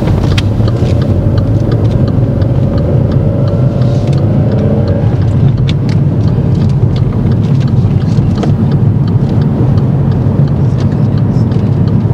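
Car driving at speed, heard from inside the cabin: steady engine and road noise, with a faint rising engine note a few seconds in as it gathers speed.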